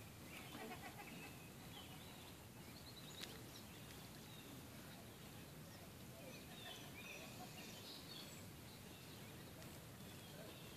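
Faint outdoor ambience: a low steady background hiss with scattered faint bird chirps, and a single soft click about three seconds in.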